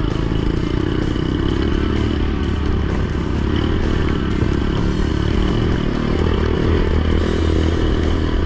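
Dirt bike engine running steadily as the bike is ridden along a dirt trail.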